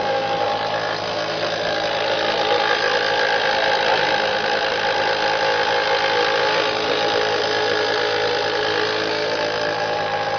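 Petrol pump fuel dispenser's pump motor running with a steady hum.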